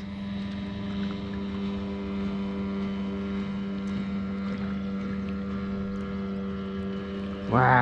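A motor humming steadily at a constant pitch, with no change in speed.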